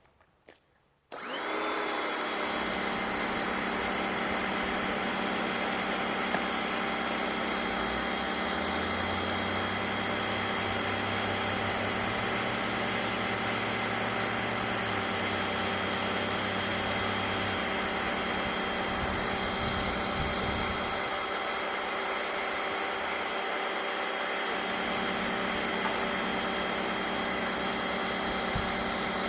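SunJoe electric pressure washer starting about a second in and running steadily, its motor and pump whining under a hiss of water jetting from the wand's 15-degree tip onto concrete.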